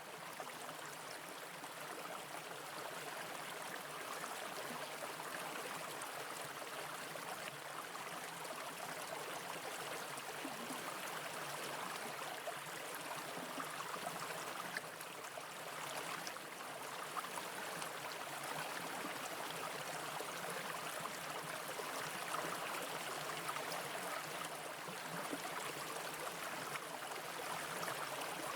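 Brook water running steadily over rocks.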